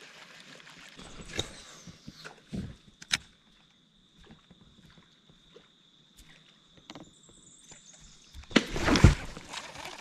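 Baitcasting reel and rod handling: a few sharp clicks as the lure is cast and the reel engaged, and a thin steady high whine for several seconds. About a second and a half before the end the whine cuts off under a loud, brief rush of noise.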